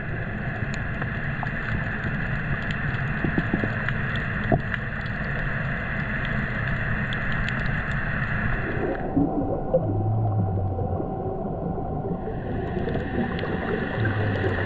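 Underwater ambience heard through a diving camera: a steady rushing, gurgling water noise with a low hum, its hiss thinning out for a few seconds past the middle and then returning.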